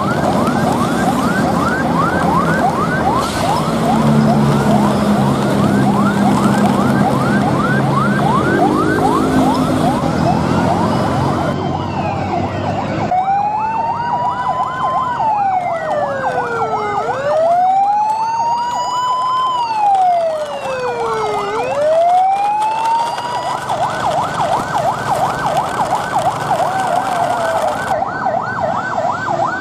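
Electronic emergency-vehicle siren in a fast yelp, about four rising chirps a second. About halfway through it switches to a slow wail that rises and falls every few seconds, with a second, higher siren sweeping over it, then goes back to the fast yelp near the end.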